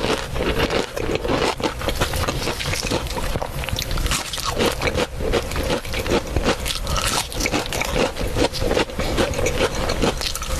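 Close-miked crunching and chewing of crispy food, a dense, unbroken run of crackling bites.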